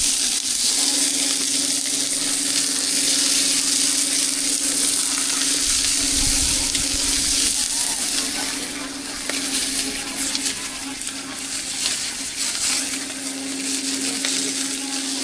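Food frying and sizzling in hot oil: a dense, steady hiss that eases off a little about halfway through. A steady low hum runs underneath.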